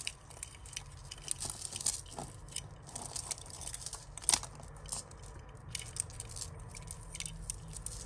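Costume jewellery chains and beads clinking and rattling in the hands as a tangled bundle of necklaces is picked apart: irregular small clicks and rustles, the sharpest about four seconds in.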